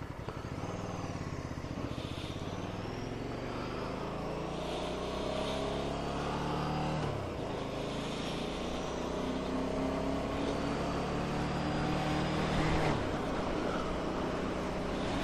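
Ducati Scrambler Sixty2's 399 cc air-cooled L-twin accelerating from a standstill. Its pitch rises steadily, drops with an upshift about seven seconds in, climbs again and drops with a second upshift near the end, getting louder as speed builds.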